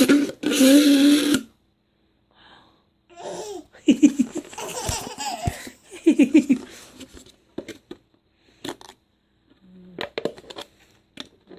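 A steady, hummed noise, then laughing in short pitched bursts from about three to seven seconds in, followed by a few faint clicks.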